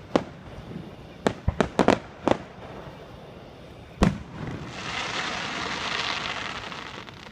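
Aerial fireworks going off: a quick run of sharp bangs in the first two seconds or so, then one louder bang about four seconds in, followed by a few seconds of dense crackling.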